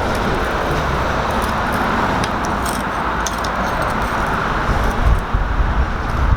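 Steel flat stock, part-cut, being worked loose and snapped along the cut, heard as scattered metallic clicks and a few knocks about five seconds in. A loud, steady rushing noise from shop equipment runs underneath.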